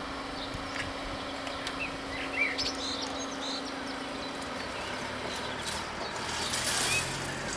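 Level-crossing barrier drives humming steadily as the booms rise, cutting off about four and a half seconds in. Birds chirp, and near the end a car drives over the crossing.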